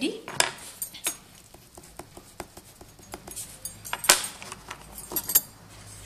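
Small hard objects being handled, clicking and clinking: a run of light irregular clicks with a few louder knocks, one just after the start, one about four seconds in and a couple just after five seconds.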